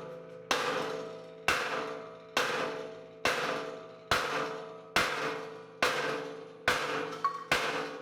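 Hammer blows on a steel car frame, nine strikes a little under a second apart, each ringing out briefly afterwards: the bent frame being knocked straight.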